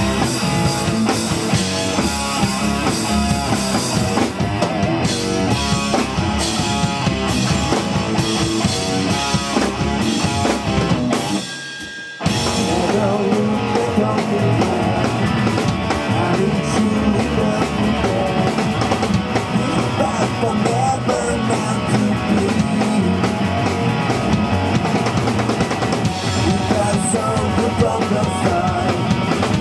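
Live rock band playing loud, driving rock with drum kit and electric guitar. About 12 seconds in, the band stops for a brief break, then comes crashing back in.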